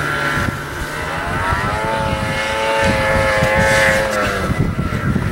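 Ski-Doo snowmobile engine revving up under load as it pulls riders and a towed sled uphill, holding a steady high pitch for about two seconds, then easing off a little after four seconds in.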